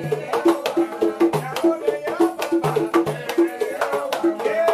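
Batá drum ensemble of three double-headed drums playing an interlocking rhythm: repeated open tones from the drumheads at two pitches under a dense stream of sharp slaps and strokes, with the jingle of the bells hung on the large iyá drum.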